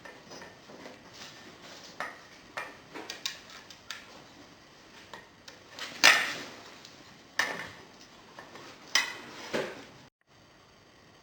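Metal parts clinking and knocking as battery mounting plates and bolts are handled and fitted to a bicycle's down tube, with a few louder clanks in the second half.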